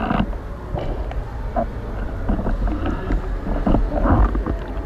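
Muffled underwater sound heard through an action camera's waterproof housing: a steady low rumble with scattered clicks and short knocks.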